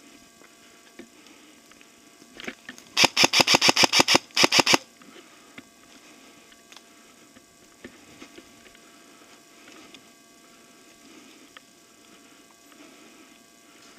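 Airsoft gun firing a rapid string of about a dozen shots, about seven a second, with a brief break before the last few.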